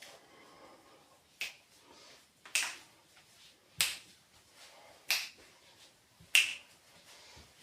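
A person coughing: about six short, dry coughs at an even pace of roughly one every second and a quarter, from someone with a sore throat.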